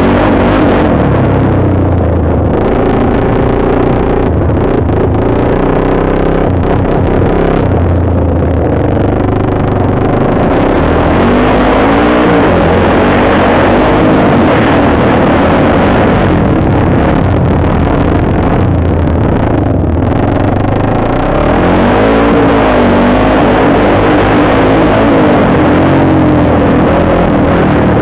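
Off-road bike engine under load, heard from the rider's helmet camera, revving up and down again and again as it is ridden over rough ground.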